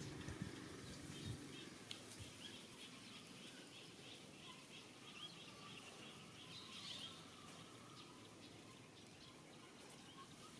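Near silence: quiet room tone with a run of small, faint, high chirps repeating rapidly through the middle, and a few soft low knocks at the start.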